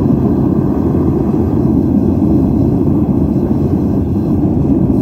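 A melting furnace's burner running with a loud, steady roar, heard close over the furnace opening while scrap metal glows inside.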